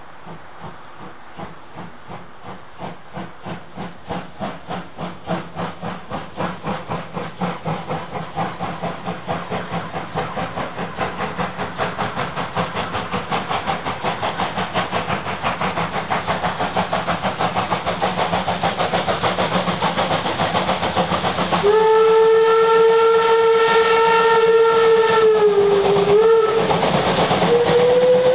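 Steam locomotive working along the line, its exhaust beats growing steadily louder and quicker as it comes closer. About 22 seconds in its steam whistle sounds a long single-pitched blast, which dips and breaks off briefly after about four seconds, then sounds again at a higher pitch.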